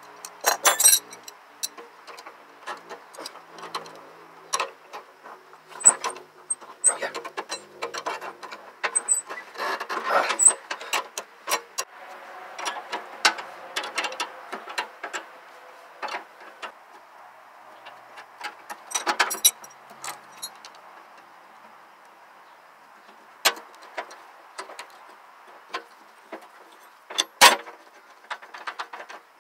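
Steel combination wrenches clinking and ticking against the nuts of a go-kart's front spindle and tie rod end as they are worked loose: scattered metallic clicks, a few louder knocks near the end.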